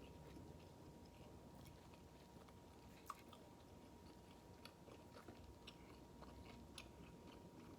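Faint chewing of a bite of ribeye steak: scattered soft mouth clicks and smacks, one a little louder about three seconds in, over a faint steady high hum.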